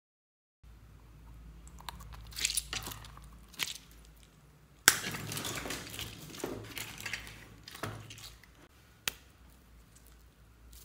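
Fingers pressing into slime loaded with beads and sequins in a glass dish: scattered crackles and clicks, with a sharp snap about five seconds in followed by about a second of dense crackling.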